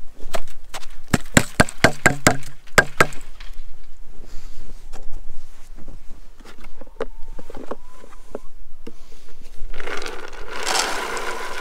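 A quick run of sharp knocks and crunches in the first three seconds, then scattered clicks. Near the end comes a dense rattle of dry dog kibble poured into a bowl from a plastic scoop.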